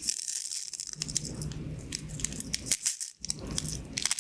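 Pins of a pin-art toy clicking and rattling as they are pushed and slide in their frame, in quick irregular clusters of small clicks.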